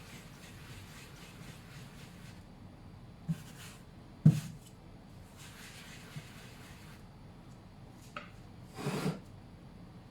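Hands working on a kitchen work surface: rubbing and scuffing sounds with a few light knocks. The loudest knock comes about four seconds in, and a longer scuffing rub comes near the end.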